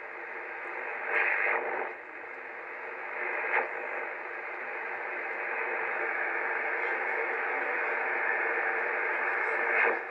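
Receiver audio of an Icom IC-725 HF transceiver being tuned across the band in upper sideband: steady band noise from the speaker, with short squawks of signals sweeping past about a second in, about three and a half seconds in, and near the end.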